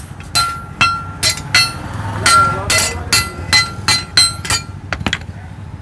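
Blacksmith's hammer striking steel on an anvil while forging a knife blade: a steady run of about a dozen ringing blows, two to three a second, stopping about four and a half seconds in.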